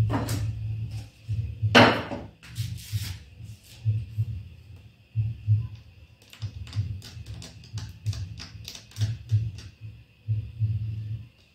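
A small hand tool scraping and clicking on a TV panel's circuit board in short, uneven strokes while cutting away a shorted track, with the loudest scrape about two seconds in. A low hum comes and goes underneath.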